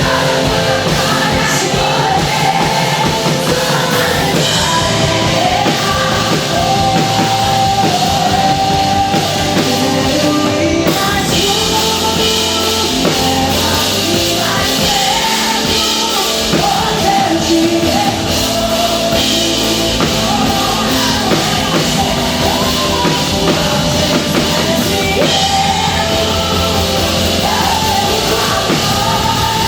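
Live contemporary Christian worship music: a singer over a loud rock-style band, with the band swelling about eleven seconds in.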